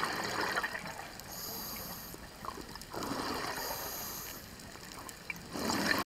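Scuba diver breathing through a regulator underwater: gurgling rushes of exhaled bubbles near the start, again about three seconds in and at the end, with a thinner hiss of inhaling between them.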